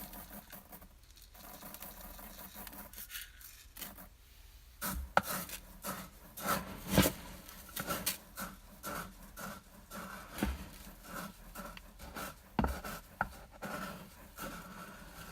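Dry uncooked rice grains shifting and rustling, soft at first with short pauses, then from about five seconds in a busier run of irregular sharp clicks and brief rattling bursts.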